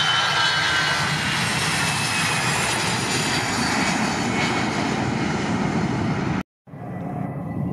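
Airbus A320-family airliner's jet engines at takeoff thrust: a steady roar under a high whine that slowly falls in pitch. About six and a half seconds in it cuts off abruptly, and quieter, more distant jet noise follows.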